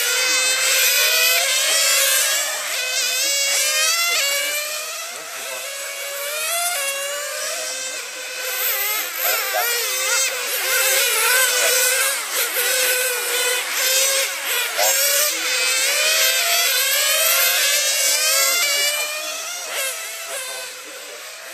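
Several radio-controlled race cars' small nitro engines screaming at high revs, their overlapping high-pitched notes constantly rising and falling as the cars accelerate and brake around the track.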